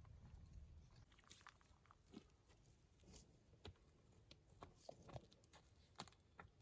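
Near silence, with faint scattered clicks and crackles.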